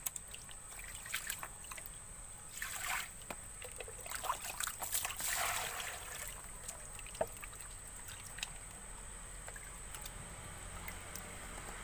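Water trickling and splashing in short bursts, with light clicks and knocks of handling.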